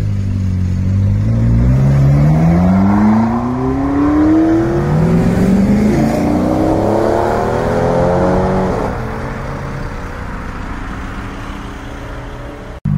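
Supercar engine accelerating hard away. The pitch climbs steeply through one gear, drops at an upshift about five seconds in, and climbs again through the next gear before easing off and fading into the distance.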